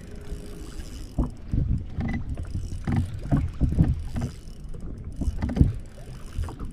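Water sloshing and slapping against a kayak hull in irregular low knocks.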